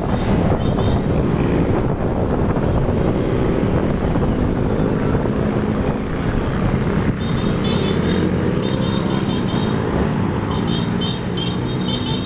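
Motorbike riding along a street: steady engine and road noise with heavy wind buffeting the microphone. From about seven seconds in, short high-pitched sounds repeat in quick bursts over it.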